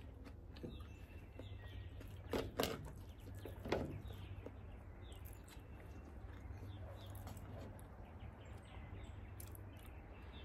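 Faint birds chirping in the background over a low steady hum, with a few sharp clicks and scrapes of a metal spoon working rice in a crab shell. The loudest clicks come about two and a half and four seconds in.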